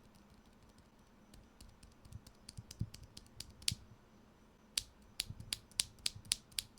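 Keys with Zifriend Panda silent linear switches being typed on a mechanical keyboard. The key presses start faint and scattered about a second in, then settle near the middle into a steady run of about four keystrokes a second.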